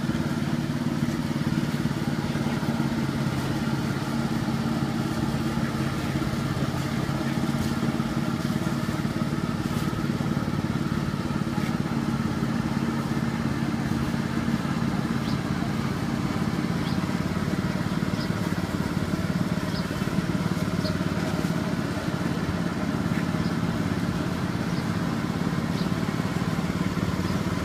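A small engine running steadily at an even speed, a low constant hum, with faint voices in the background.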